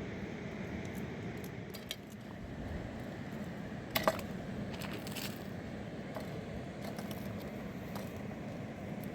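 Steady rushing of a fast river, with a couple of sharp clicks about four seconds in.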